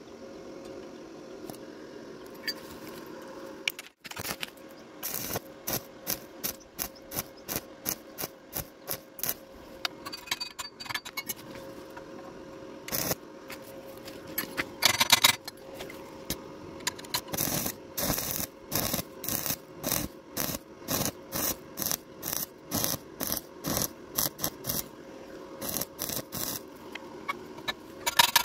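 Repeated rasping strokes of a hand tool working steel rebar, about one and a half strokes a second, with a louder flurry around the middle.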